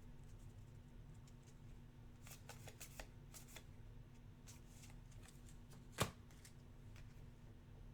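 Faint handling of trading cards: soft flicks and rustles as cards are slid through a pack, with one sharper click about six seconds in.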